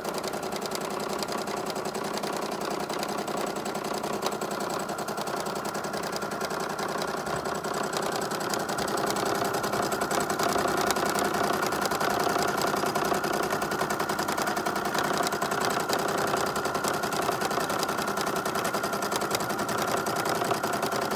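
Domestic electric sewing machine running continuously at a rapid stitch rate, doing free-motion stitching as the fabric is guided freehand under the needle. It gets a little louder about eight seconds in.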